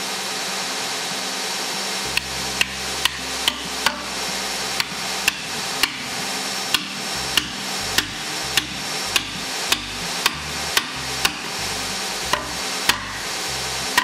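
A hammer strikes wooden wheel spokes, driving them into a Sarven wheel hub. There are about twenty sharp blows at roughly two a second, starting about two seconds in, over background music.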